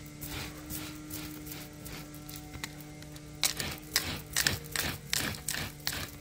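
Manual pet hair remover roller pushed back and forth over carpet, a scraping stroke each pass, the strokes coming quicker and louder after about three seconds.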